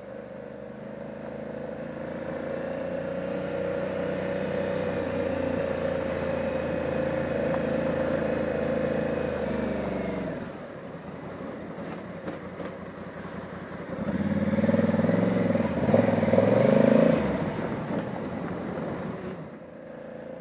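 2020 Honda Africa Twin's parallel-twin engine pulling steadily on a gravel trail, its note building gently over the first ten seconds and then falling away as the throttle closes. A few seconds later comes a louder, wavering burst of throttle.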